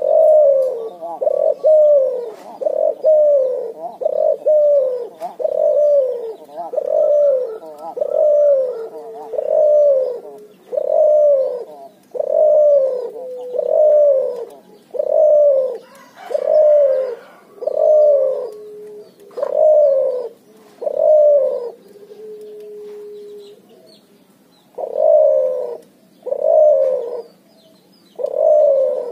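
Cuhu, a hybrid of puter and tekukur doves, cooing over and over, about one short falling coo a second. Near the end the run breaks for a long, steady note and a short pause before the coos start again.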